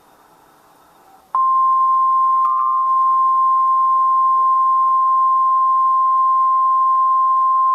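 NOAA Weather Radio warning alarm tone, a single steady high-pitched tone that switches on sharply about a second and a half in, after faint hiss. The tone signals that an emergency warning message is about to be read.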